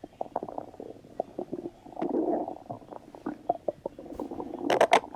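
Stomach rumbling sound effect: a string of short gurgles and pops, a denser rumble about two seconds in, and the loudest gurgling burst near the end.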